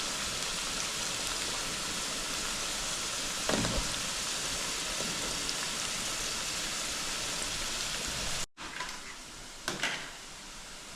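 Plantain slices and onions frying in oil and butter: a steady sizzle, with one light knock about a third of the way in. The sizzle cuts off abruptly about eight seconds in, leaving a quieter stretch with a couple of short clicks.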